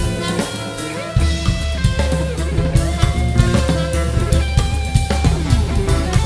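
Instrumental band music led by a drum kit, with bass and a melodic instrument such as guitar or keyboard over it. The bass drops out for about the first second, then the full band comes back in.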